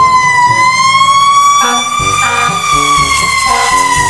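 Fire truck siren wailing, its pitch sliding slowly up and then down in a long, drawn-out cycle.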